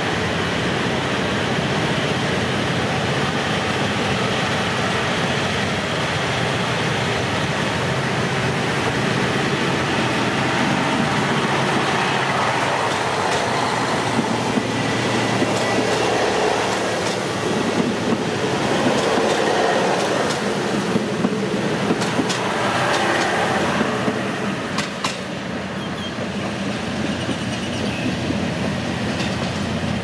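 KiHa 183 diesel multiple unit pulling out and running past close by at low speed: a steady diesel engine hum with wheel and car noise. A few sharp clicks come as the wheels cross rail joints, about two-thirds of the way through.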